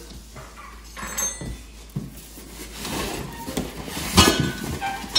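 Cardboard box flaps and a styrofoam packing block being handled and shifted inside the box, with scraping and rustling and one sharp knock about four seconds in.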